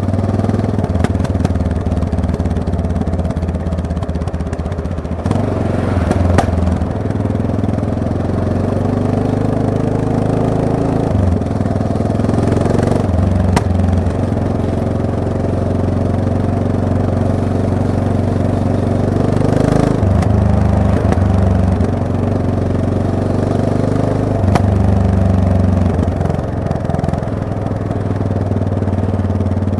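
Yamaha MT-03 motorcycle engine running while being ridden, its pitch stepping up and down several times with throttle and gear changes.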